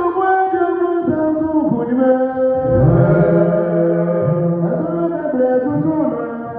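Worship singing: voices chanting a song in long held notes, growing louder about three seconds in.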